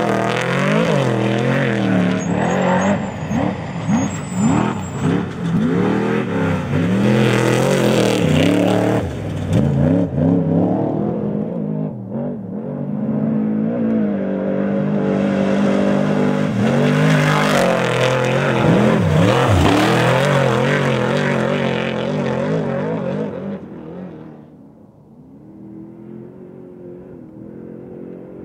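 Unlimited desert race truck's engine revving hard, its pitch climbing and falling again and again with throttle and gear changes. About 24 s in it drops to a quieter, steadier engine note.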